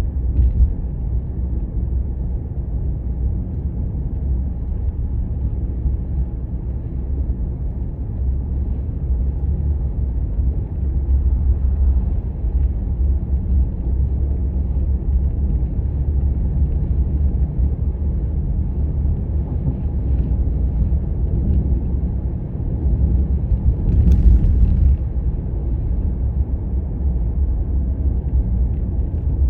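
Vehicle driving on the road: a steady low rumble of engine and road noise, with a brief louder, sharper noise about 24 seconds in.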